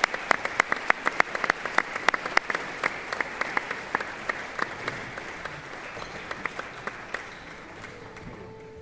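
Audience applauding, with many sharp individual claps standing out. The applause thins out and fades over the last few seconds.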